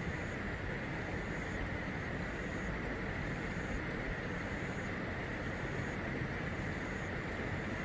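Steady outdoor ambience: an even, low rumble of distant road traffic, with a steady high hum and a faint high chirp repeating about once a second.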